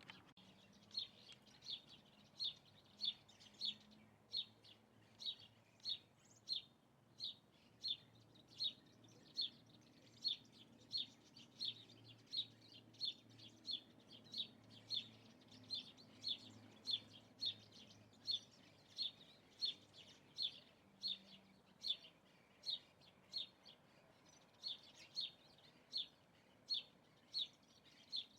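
A single bird repeating a short, high call at a steady pace, about one and a half calls a second, with a brief pause near the end.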